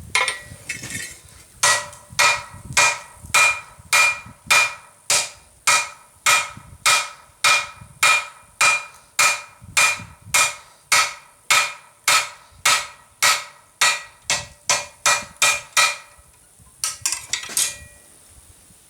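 Blacksmith's hammer striking a steel flat-bar blank on an anvil in a steady run of blows, about three a second, each with a bright metallic ring. The blows stop about three-quarters of the way through, followed by a few lighter knocks.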